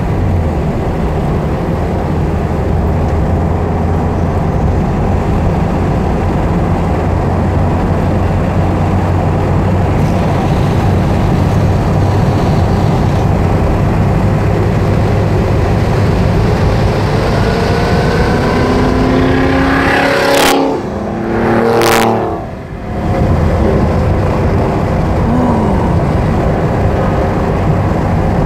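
Porsche 968's four-cylinder engine pulling hard at track speed, heard from inside the cabin with road and wind noise. About twenty seconds in the engine note rises, then two sharp clicks come a second and a half apart, each followed by a brief drop in engine noise.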